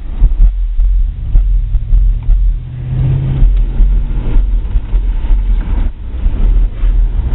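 Very deep, loud, pulsing bass from a Chevy Tahoe's six JL Audio 13W7 subwoofers, with a rumbling, distorted quality.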